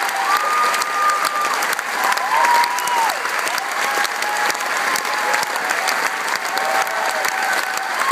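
Theatre audience applauding steadily, a dense roll of clapping, with long held calls from the crowd rising above it now and then.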